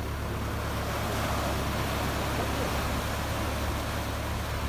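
Tractor engine running steadily while small waves wash up on the sand.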